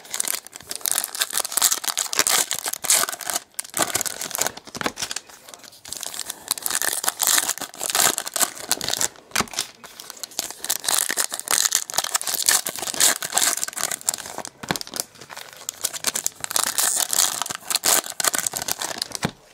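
Foil wrappers of Panini Select racing card packs crinkling in the hands and being torn open, a near-constant crackle with a few short breaks.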